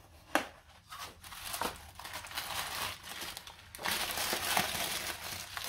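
Tissue paper crinkling and rustling as a wrapped item is unwrapped by hand. There is a sharp click about a third of a second in, and the rustling grows louder from about four seconds in.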